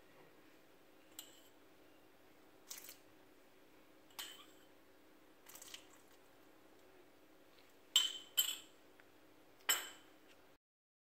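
Metal utensils tapping against a glass mixing bowl: a few light clinks spaced about a second and a half apart, then three sharper clinks near the end, after which the sound cuts out.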